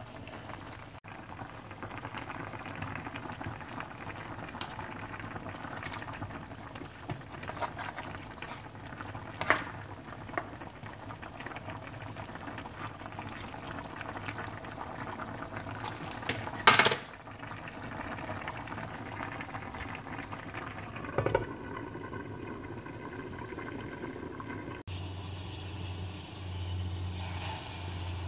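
Pork soup bubbling at a simmer in a pot, with a ladle stirring and knocking sharply against the pot three times. The middle knock is the loudest. Near the end the bubbling gives way to a steady low hum.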